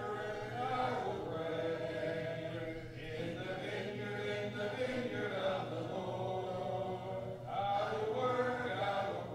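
Church congregation singing a hymn a cappella, with no instruments, led by a song leader: sustained notes with short breaks between lines.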